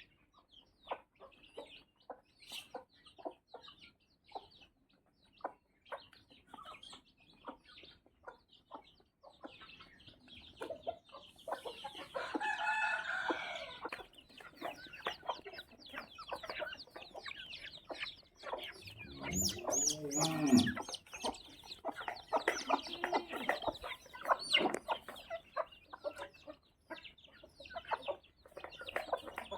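Chickens clucking in short repeated notes, with longer drawn-out calls about twelve and twenty seconds in, the louder second one a rooster crowing.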